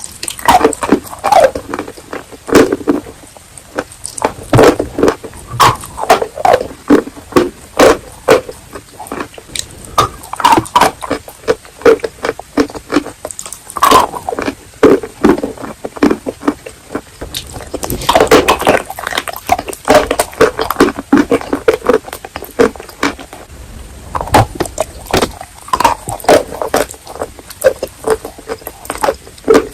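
Close-miked biting and chewing of wet chalk with clay paste: dense crunches and wet mouth clicks, several a second, coming in clusters.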